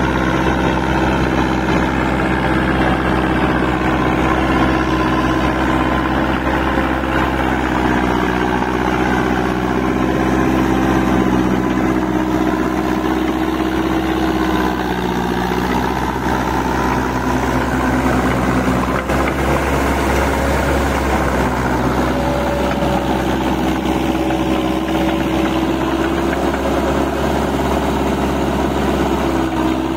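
Massey Ferguson 185 crawler-converted tractor's four-cylinder diesel engine running steadily at a constant speed as the tractor crawls through a flooded paddy, towing a rotary tiller through the mud.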